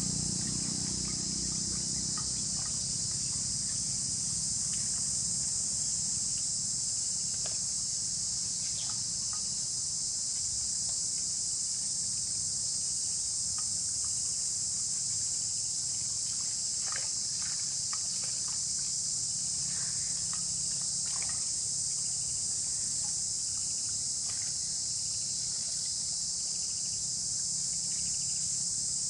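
Steady high-pitched insect chorus, crickets or cicadas, shrilling without a break. A low steady hum sits beneath it, with scattered faint clicks and knocks through the middle.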